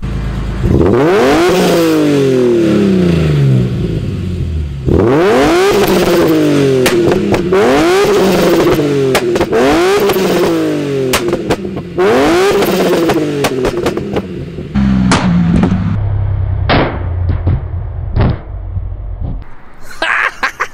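A 2006 BMW E46 M3's S54 inline-six is revved hard three times and let fall, the middle time with several quick blips. The exhaust pops and crackles on each fall in revs. The owner says the pop as the revs drop through about 4,200 RPM after a redline rev is what throws flames, with the RKTunes tune. The engine then settles to idle, with a few single sharp exhaust pops.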